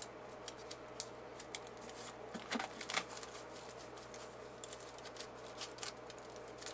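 Aluminium foil crinkling in faint, irregular crackles as fingers press and smooth it tightly around an object, with a few louder crackles about two and a half to three seconds in.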